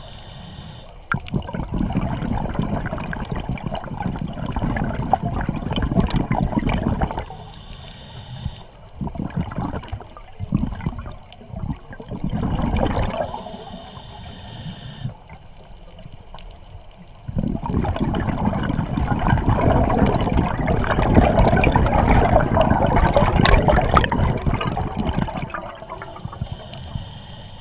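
Scuba diver's exhaled bubbles gurgling past an underwater camera, in three long surges of breath with quieter gaps between them.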